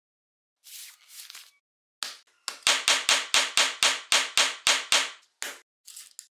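Kitchen knife chopping on a wooden cutting board: a fast, even run of about a dozen sharp strokes, four or five a second, each a thud with a crack on top, trailing off into a few softer knocks near the end.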